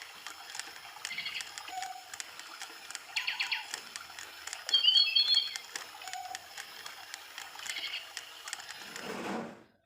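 Electronic toy bird chirping and trilling in imitation of a real songbird, in repeated short phrases, loudest about halfway through. It cuts off suddenly near the end.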